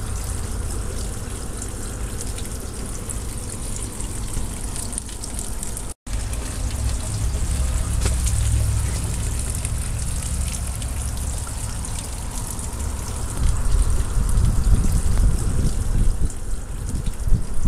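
Water pouring steadily from the aquaponics return drain pipe into the 200-gallon fish tank, a continuous splashing trickle. From about thirteen seconds in, uneven gusts of wind buffet the microphone.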